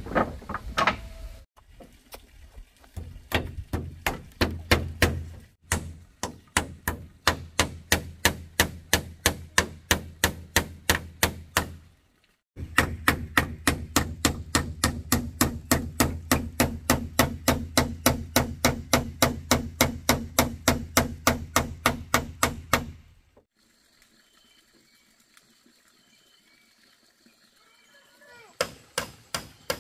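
Hammer driving nails into wooden planks, blows coming steadily about three a second. There is a short break about halfway, and a pause of several seconds near the end before the hammering starts again.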